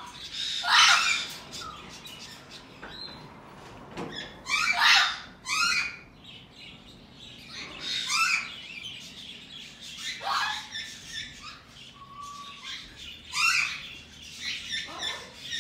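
Green-cheeked conures calling: short harsh squawks and chirps in bursts every two to three seconds, several sliding down in pitch.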